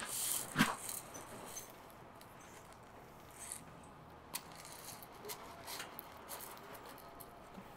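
Small top-dressing pebbles trickling from a plastic scoop onto potting soil and succulent rosettes: scattered faint clicks and light patter over a low steady hiss, the busiest burst about half a second in.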